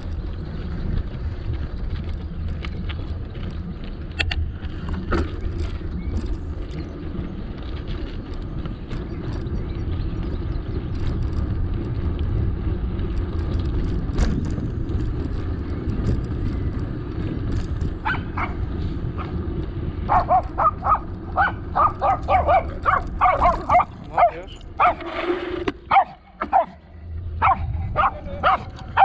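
Wind rushing over the microphone of a moving bicycle, then, from about two-thirds of the way in, a dog barking rapidly and repeatedly, about three barks a second.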